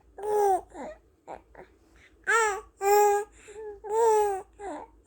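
A 78-day-old baby cooing contentedly: a string of short, high-pitched vowel-like coos, about four clear ones with a few softer ones between.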